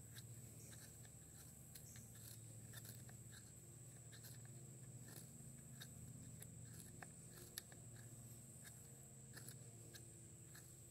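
Faint, repeated scraping and crackling of a knife blade shaving thin curls off a dry stick, carving a feather stick for fire-lighting.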